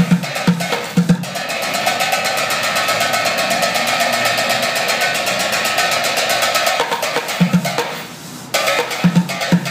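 Street bucket drumming: sticks striking upturned plastic buckets. Deep thuds on the bucket bottoms open the passage, then give way to a fast roll lasting about five seconds, and the deep hits come back near the end.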